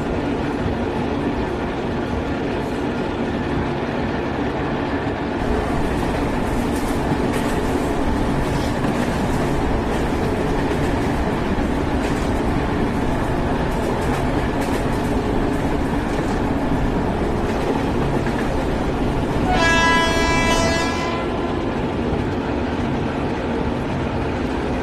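Steady running noise of an Indian Railways WAP-7 electric locomotive heard from inside its cab, a continuous rumble of the train under way. About twenty seconds in, the locomotive's horn sounds once for about a second and a half.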